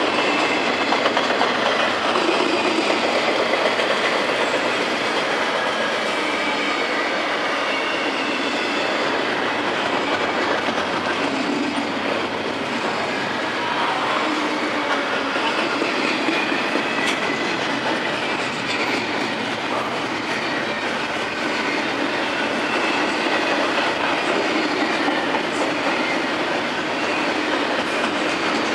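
Double-stack intermodal container train rolling past: a steady rumble and clatter of steel wheels on the rails, with faint wavering squeals from the wheels.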